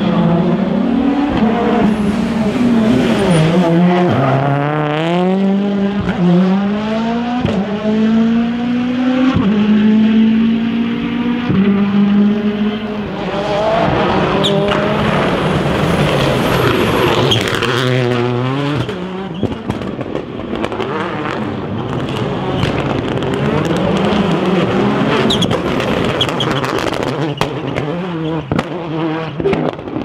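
Rally cars' turbocharged four-cylinder engines accelerating hard, the pitch climbing through gear after gear and dropping at each upshift, then falling away as the drivers lift off and brake. In the second half a car runs rougher, with many sharp cracks.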